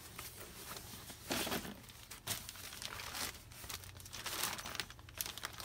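A folded white garment bag being handled and unfolded, its thin material rustling in irregular bursts, loudest about a second and a half in.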